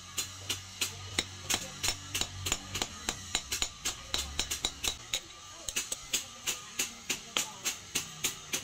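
Hand hammer striking a steel drift set in the eye of a red-hot forged hammer head, the drift resting on a steel anvil. The blows come in a steady rhythm of about three a second, each a sharp metallic strike.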